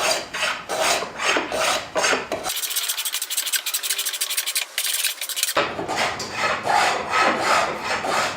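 Sandpaper rubbed back and forth by hand on a walnut breadboard, about two to three strokes a second. In the middle there are a few seconds of faster, thinner scratching.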